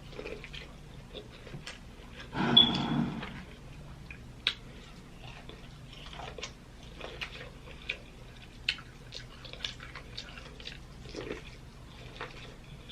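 Close-up eating sounds from a seafood boil: chewing, lip smacks and small wet clicks scattered throughout, with one louder noisy sound lasting about a second, about two and a half seconds in.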